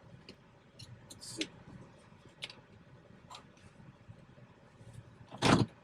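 Faint scattered clicks and ticks from hands handling a shift knob and its extension on an automatic gear shifter, then one loud sharp knock near the end.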